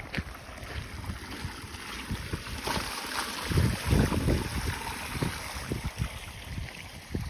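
Water spraying and splashing out of a leaking joint in a pipe lying on gravel, a steady hiss that gets louder for a couple of seconds near the middle. Wind rumbles on the microphone underneath.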